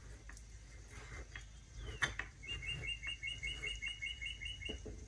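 A bird chirping: a quick, even run of about a dozen short high chirps, about five a second, starting about halfway through and lasting a little over two seconds. A few faint clicks come before it.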